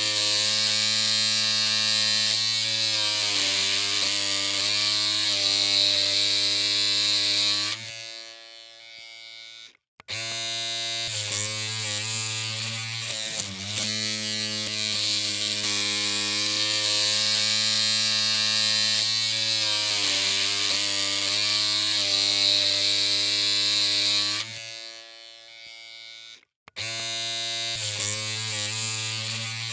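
Electric hair clippers running with a steady buzzing hum. The hum cuts out twice for about two seconds and then starts again.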